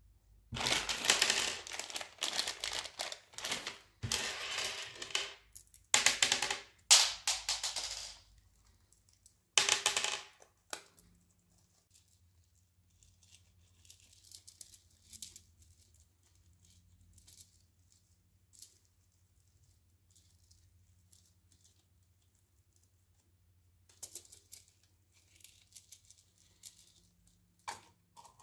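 M&M's candies clattering in loud bursts as they are poured from their packet into a latex condom, with a fainter rattle near ten seconds. After that comes only faint rustling of the candy-filled condom being handled, over a low steady hum.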